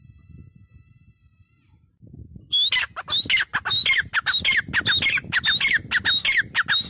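Grey francolin calling: after a quiet start, about two and a half seconds in, a loud, rapid run of repeated short notes begins, about three a second, each sliding down in pitch.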